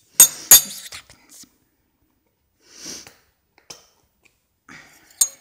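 Two loud handling knocks in quick succession just after the start, then a short sniff about three seconds in and a few light clicks, the sharpest near the end.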